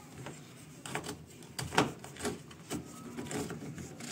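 Hands working the washer-dryer's lower service hatch and its black emergency drain hose: a string of plastic clicks and knocks, the loudest nearly two seconds in.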